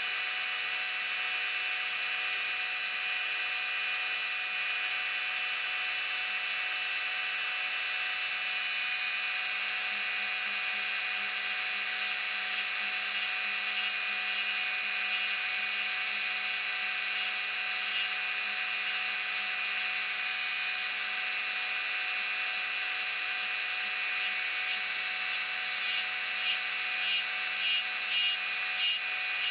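Wood lathe running steadily with a spalted maple pencil blank spinning while it is worked with a tool or abrasive. Near the end the sound starts to pulse about twice a second.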